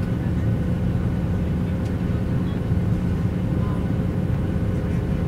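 Steady jet-engine noise inside the cabin of a Boeing 737 climbing after takeoff: an even low rumble with a thin, steady tone above it.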